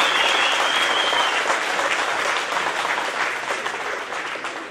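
Crowd applauding in a hall, the clapping fading gradually over the last seconds.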